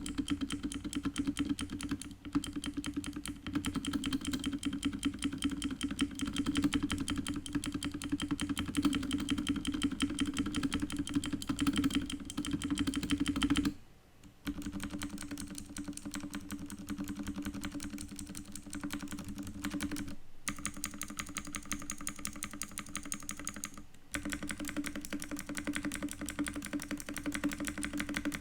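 Fast, continuous typing on a K550 tenkeyless mechanical keyboard with clicky blue switches, each keystroke a sharp click. The typing stops briefly about halfway through and for short moments twice more near the end, and after the first pause the keystrokes sound thinner, with less low thud.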